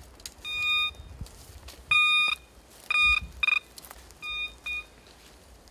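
Metal detector beeping, six short tones of the same pitch in irregular succession as its coil passes over metal.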